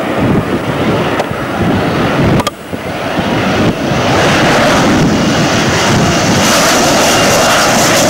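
Panavia Tornado jet on landing approach with its wheels down. Its twin turbofans swell about halfway through to a loud, steady rush with a thin high whine. Before that, wind buffets the microphone.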